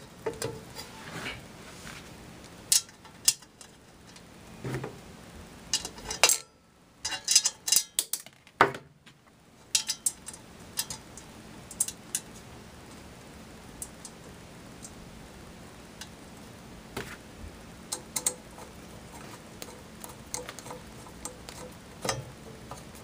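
Stainless steel ice shaver cover and its screws being handled and fitted back on: irregular metal clinks and taps, with a run of quick clicks about seven to nine seconds in.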